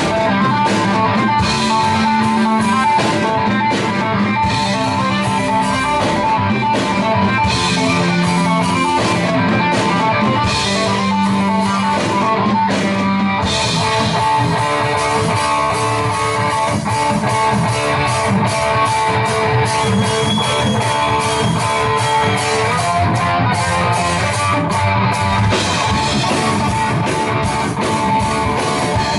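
Guitar-led music with strummed guitars and drums. The sound fills out and grows brighter about 13 seconds in.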